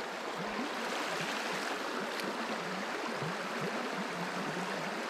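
Shallow river flowing over a gravel bed: a steady rush of running water.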